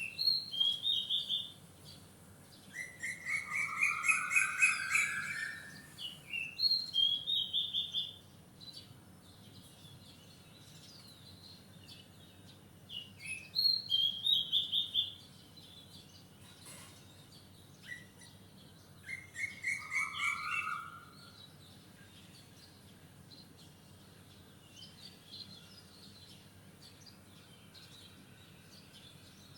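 Wild songbirds singing, several birds in turn. One short, bright phrase comes back about every seven seconds, and a lower, longer trill sounds twice. Between them are quiet stretches with only faint calls, longest in the second half.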